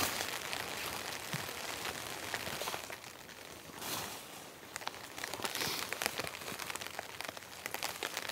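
Light rain falling: a soft steady hiss dotted with small ticks of drops, with the rustle of a tarp being handled and swelling briefly about four seconds in.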